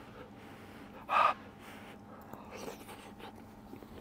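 A single short puff of breath blown over a spoonful of hot soup to cool it, about a second in.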